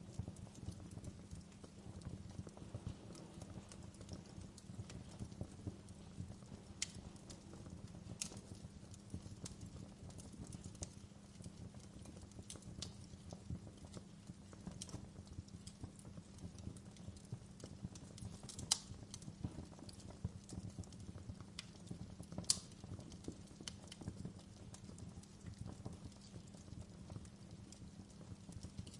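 Wood fire crackling in a fireplace: a steady low rumble under frequent small pops, with a few sharper snaps standing out.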